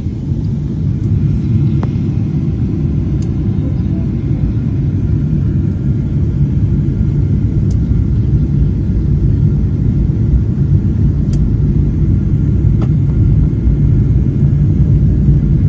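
Airliner cabin noise at low altitude: a steady low rumble of the engines and air rushing past the fuselage, heard from a window seat.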